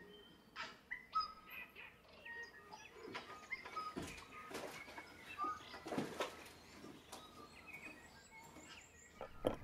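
Several birds chirping and whistling in short, scattered calls, with a quick run of high repeated notes near the end. A few soft knocks sound in between.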